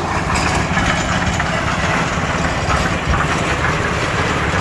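Engine-driven concrete mixer running steadily, mixing a batch of cement for the pour.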